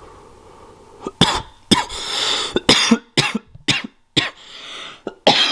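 A man coughing in a run of about seven sharp coughs starting about a second in, with rasping breaths between them, after inhaling vapor from a disposable vape pen.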